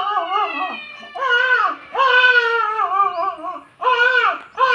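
A person imitating a baby of about six months crying loudly, in four or five wavering, wailing cries with short breaks between them.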